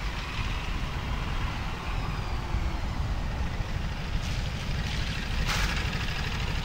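Ducati Desert X motorcycle's 937 cc V-twin engine running as the bike is ridden along, with a steady low rumble under wind rush that swells from about four seconds in.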